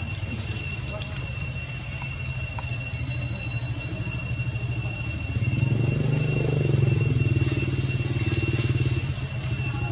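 A motor engine running steadily, getting louder about five and a half seconds in, with a steady high-pitched whine above it.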